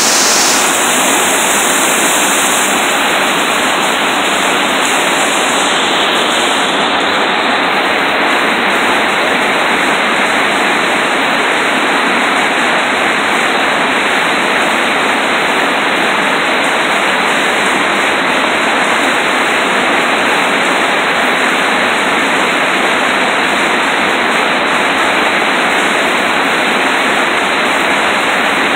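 River rapids rushing steadily and loudly, whitewater churning through a shallow run right in front of the microphone.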